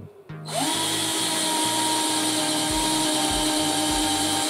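Black+Decker BCD003C2K 18V cordless hammer drill starting about half a second in, its motor whine rising quickly to a steady pitch as a twist bit bores into a wooden board.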